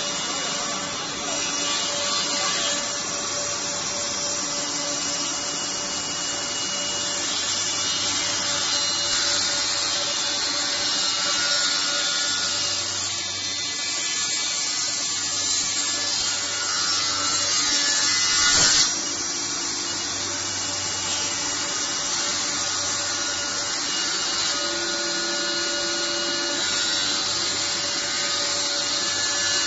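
Five-spindle four-sided moulder running, its spinning cutter heads planing and profiling a timber board that the feed rollers drive through, a steady dense cutting noise over a motor hum. About two-thirds through, the cutting swells louder and then cuts off suddenly.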